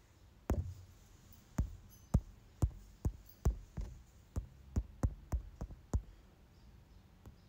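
A run of about a dozen short, dull knocks and clicks at an irregular pace of roughly two a second, starting about half a second in and stopping about a second before the end: handling noise from an object being worked in the hands close to the microphone.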